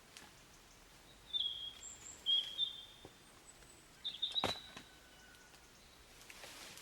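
Birds chirping outdoors: a few short, high whistled notes about a second apart, with a single sharp knock about four and a half seconds in.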